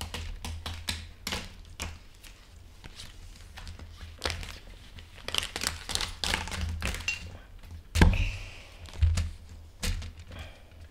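Handling noise from a Lego Technic build: thin plastic sail sheets crinkling and tapping as they are pressed out of their backing sheet, with small clicks of Lego parts. There are two heavier thunks on the table about eight and nine seconds in.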